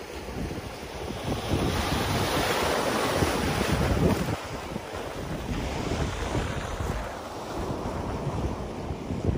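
Ocean surf washing against black lava rock, one wave swelling and breaking loudest in the first half and then easing off, with wind buffeting the microphone.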